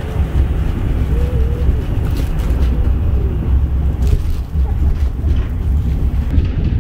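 Cog railway train running downhill, heard from inside the passenger coach: a steady low rumble from the running gear with a few faint clicks.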